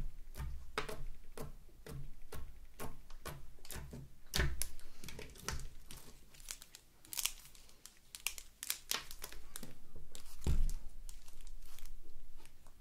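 Soft translucent glitter slime being pressed and stretched by hand, giving off many small, irregular clicks and pops as air pockets burst and the slime crackles. One louder thump about ten seconds in.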